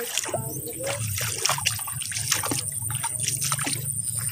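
Footsteps wading through shallow rice-paddy water: a quick, irregular run of splashes and sloshes.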